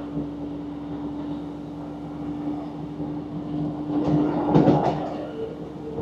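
Diesel multiple unit train running, heard from inside the carriage: a steady engine drone over wheel-on-rail rumble, which swells into a louder rush and clatter about four seconds in.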